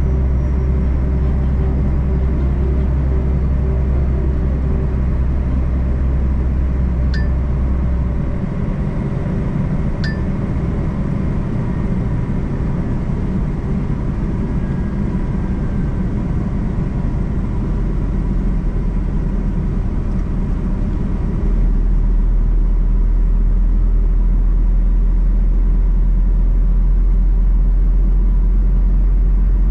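Long-haul truck's diesel engine running steadily with a low drone, heard from inside the cab. The engine note changes about 8 seconds in and the low drone strengthens again about two-thirds of the way through, with two brief clicks in between.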